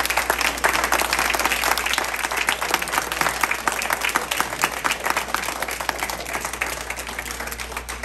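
Audience applauding, many hands clapping together, slowly thinning and dying down near the end.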